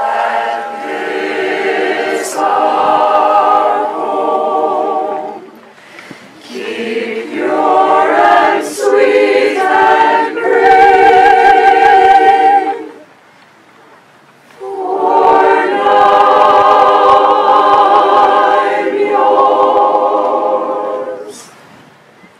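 Mixed choir of men and women singing a cappella, in sustained phrases broken by short breaths about a quarter of the way in, just past halfway, and near the end.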